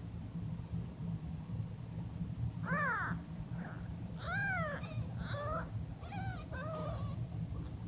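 Week-old kittens mewing: about six short, high-pitched mews, each rising and falling, starting a few seconds in, over a steady low rumble.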